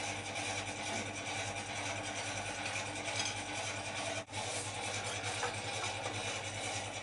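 An old electric grill running with a steady rattling hum, with a brief break just past four seconds.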